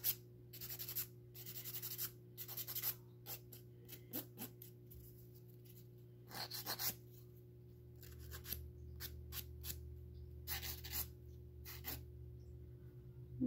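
A small handheld nail tool scraping and rubbing against a polygel fingernail in many short, irregular strokes.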